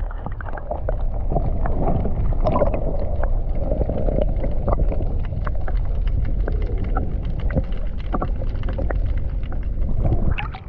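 Water heard through a submerged action camera: a muffled low rumble with many small clicks and crackles.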